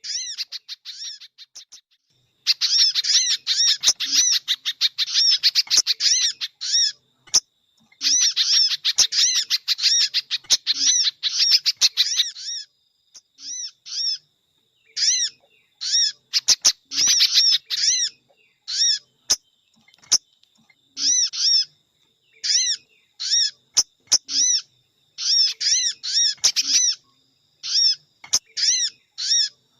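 Bird-lure recording of small songbird calls, sogon mixed with spiderhunter: rapid trains of short, high chirping notes. Long dense runs in the first half give way to shorter bursts about once a second.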